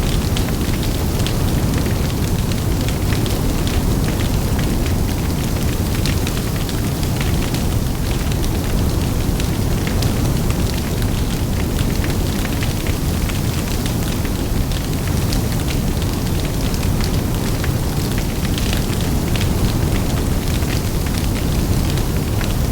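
Large open fire burning: a steady low rumble of flames with dense, sharp crackles and pops throughout.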